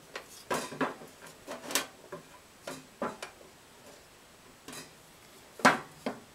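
Irregular clicks and light knocks of a metal blower motor being handled and set against its housing on a metal bench, the loudest knock a little before the end.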